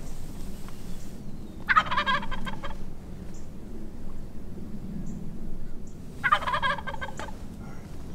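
Wild turkey toms gobbling: two rattling gobbles, each about a second long, the first about two seconds in and the second about six seconds in.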